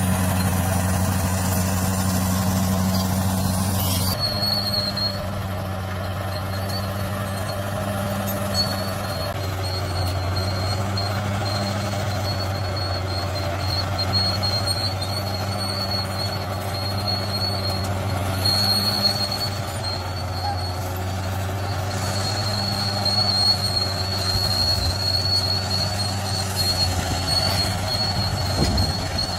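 Bulldozer's diesel engine running steadily under work, with a thin high whine coming and going above it. The sound changes abruptly about four seconds in.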